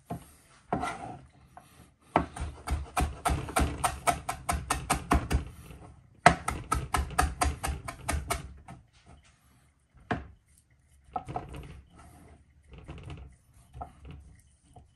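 Knife chopping parsley on a wooden cutting board: two long runs of rapid, even chops with a short break between, then a few slower, softer taps.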